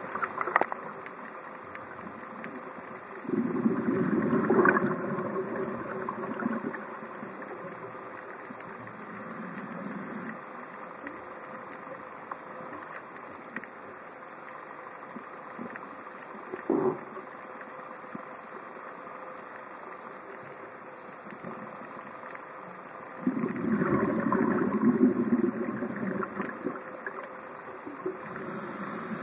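Exhaled bubbles from a scuba diver's regulator, heard underwater: two bursts of about three seconds each, a few seconds in and again near the end, over a steady hiss, with one short knock in the middle.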